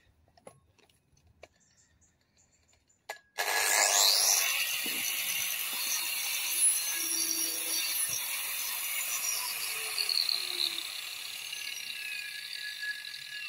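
Electric angle grinder switched on with a click about three seconds in. It spins up to a high, steady whine and runs on as it grinds down a wooden billhook handle blank, its note sagging now and then as it cuts.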